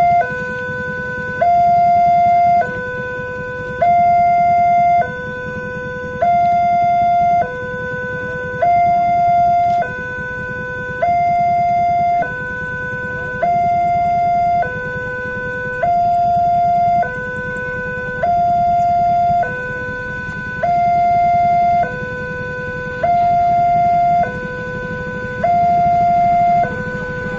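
Railway level-crossing warning siren sounding a two-tone hi-lo alarm. It switches back and forth between a lower and a higher tone about every 1.2 seconds, and it signals that the crossing is closing for an approaching train.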